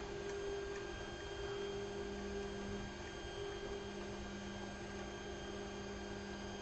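Steady electrical hum from the powered-on BIQU Legend 3D printer, a low hum with a fainter thin high whine above it and no distinct knocks.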